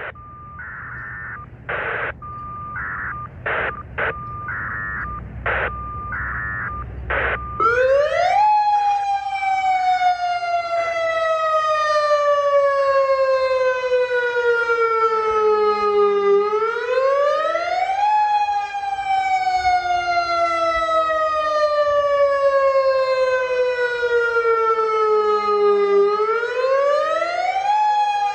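Federal Signal Modulator electronic outdoor warning (tornado) siren sounding its wail test signal. Its pitch climbs quickly, then falls slowly, and repeats about every nine to ten seconds. Before the wail starts, about eight seconds in, there is a steady high tone broken by short noisy bursts.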